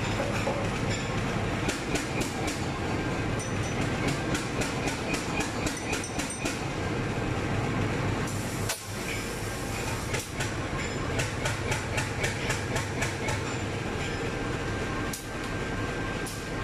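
Diesel locomotive engine idling with a steady low drone. Runs of sharp ticks come at about five a second in several stretches.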